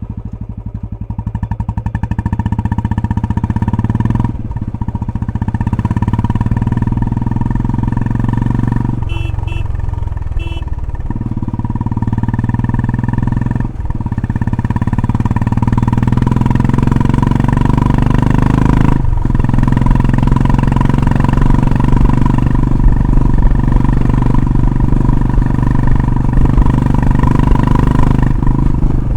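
Royal Enfield Classic 350 BS6's single-cylinder engine running loudly through a K-Indori aftermarket silencer, fitted without the rubber mud-pad insert, so this is the silencer's plain sound. The exhaust note is steady, with a brief change in its beat about nine seconds in and a few momentary breaks.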